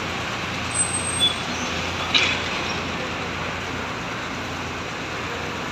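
Steady street traffic noise, with a few short sharp sounds about a second and two seconds in.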